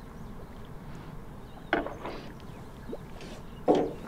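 A smallmouth bass being netted with a landing net at the side of an aluminum boat: two sudden sharp sounds about two seconds apart, over a steady low background rumble.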